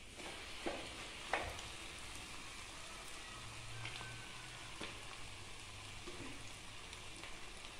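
Avial, cut vegetables coated in ground coconut, sizzling gently in a wok, with a few light clicks of the stirring spoon against the pan in the first five seconds.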